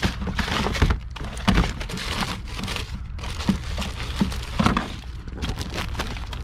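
Rummaging through a box of odds and ends: irregular knocks, clatter and crinkling as items are shifted and lifted out, over a steady low hum.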